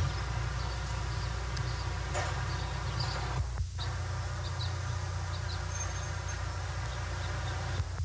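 A steady low buzzing hum with an even stack of overtones, cutting out briefly about three and a half seconds in.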